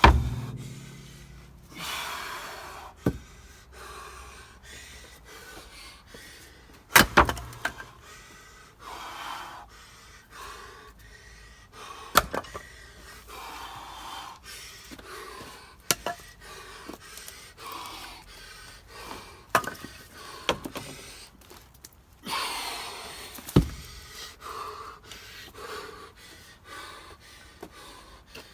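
Sharp axe strikes splitting ash firewood, several seconds apart, the loudest near the start, about 7 and 12 seconds in and near the end, with heavy panting from the person swinging between blows.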